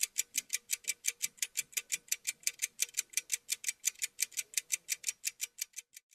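Clock-ticking sound effect: fast, even ticks at about six a second, stopping just before the end.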